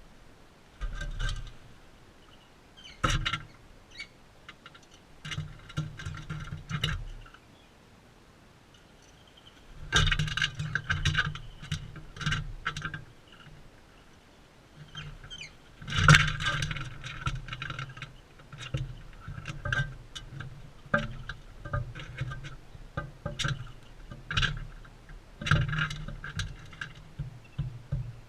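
Irregular bursts of clicking, tapping and knocking close to the microphone, typical of parrots cracking seed and pecking at a feeder right against the camera, in clusters of a second or two with short pauses between.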